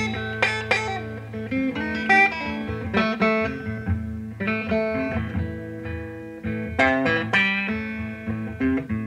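Solo electric blues guitar playing an instrumental passage: picked single notes and chord strikes over a ringing low bass note, with no vocals.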